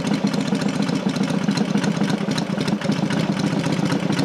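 Matchless G12's freshly rebuilt parallel-twin engine idling steadily, still warming up after a cold start.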